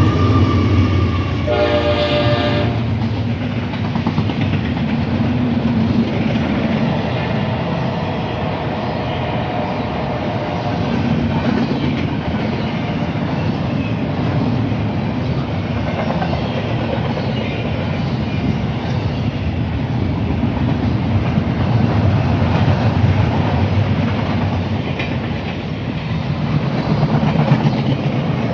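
Train passing: a single horn blast of about a second near the start, then the steady rumble of the cars rolling past.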